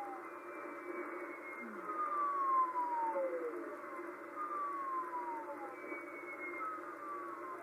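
Shortwave radio reception on 4631 kHz: short pings that drop in pitch, one every second or so, each at a different pitch, over steady receiver static hiss.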